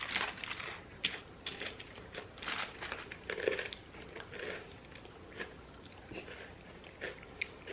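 People chewing crunchy pretzel goldfish crackers, with irregular crunches and small clicks.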